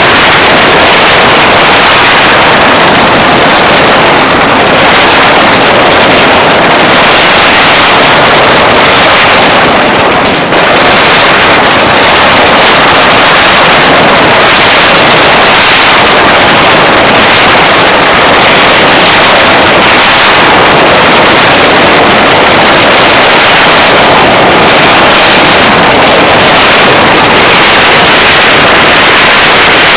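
Long strings of firecrackers going off without pause, the cracks merging into one continuous, very loud din, with a brief dip about ten seconds in.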